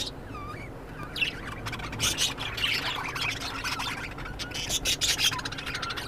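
A flock of caged budgerigars chattering, with many short high chirps and squawks overlapping and a few gliding calls.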